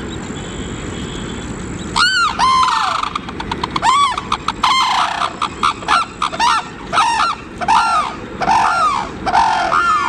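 Sarus cranes calling: about two seconds in, a loud series of repeated honking calls begins, about two a second, each rising and falling in pitch. The cranes are calling to one of their group that has just flown off.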